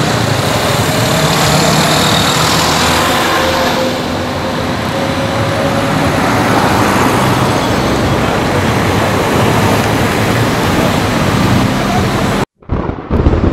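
Roadside traffic noise with vehicle engines running. The sound cuts out abruptly for a moment near the end, then returns.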